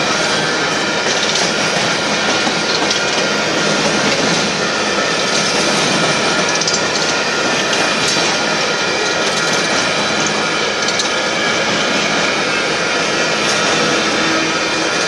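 Union Pacific coal hopper cars rolling past at a steady speed: continuous wheel-on-rail noise and clatter with no breaks or standout events.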